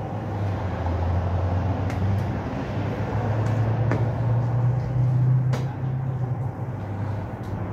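A low, engine-like mechanical rumble whose pitch shifts now and then, with the swish of a flat mop pushed across a tiled floor and a few light knocks of the mop against the floor.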